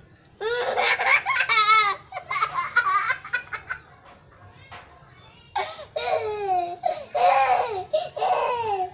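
Young girl laughing hard in high-pitched peals, in two bouts: one starting about half a second in and breaking into quick choppy pulses before it fades, then after a short pause a second bout that keeps going.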